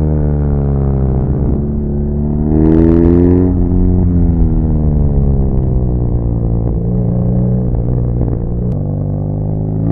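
BMW R nineT Pure's air- and oil-cooled boxer twin heard onboard while riding: revs dropping, a sharp rise in revs about three seconds in, then a long slow fall in revs as the bike rolls off, with a small step down near the end.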